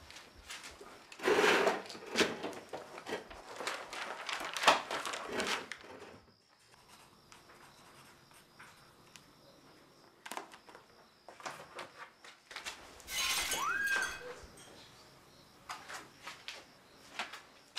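Small objects being handled on a table: a run of knocks, clicks and clinks, busiest in the first six seconds. About 13 seconds in there is a brief noisy scrape with a short squeak rising in pitch, followed by more light clicks.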